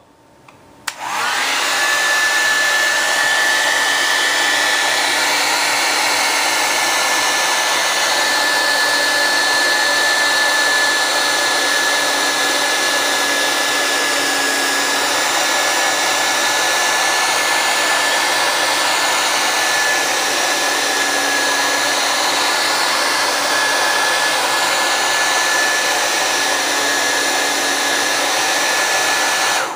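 Hand-held blow dryer running steadily, an even blowing hiss with a thin high whine, switched on about a second in; it is warming the phone screen's adhesive to soften it.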